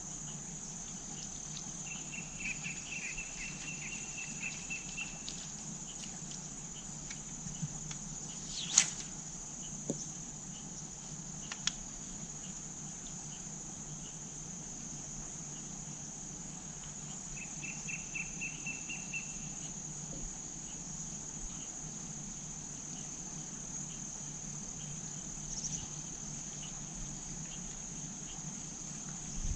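Steady high-pitched chirring of insects, with two short runs of rapid ticking, one early on and one past the middle. A sharp click about nine seconds in is the loudest sound, and a smaller one follows a few seconds later.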